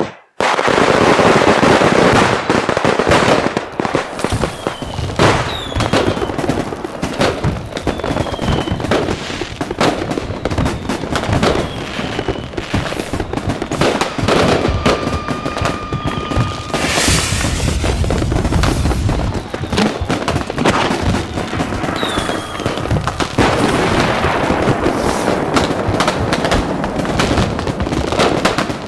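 Fireworks going off in a dense, continuous barrage of bangs and crackling. Short falling whistles of rockets cut through now and then, with one steady whistle held for a second or two about halfway through, followed by a loud hissing burst.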